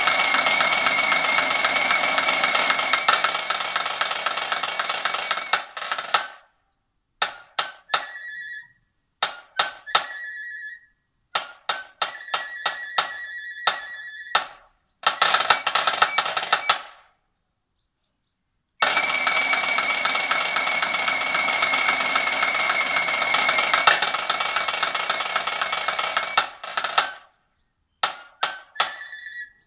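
Marching drum corps playing: long side-drum rolls with a held high note over them alternate with sparse single drum strokes and short ringing high notes. There is a brief pause a little past the middle.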